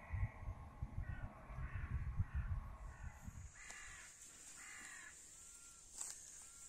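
Crows cawing, about five harsh caws spread over the first five seconds, with a low rumbling noise on the microphone in the first three seconds.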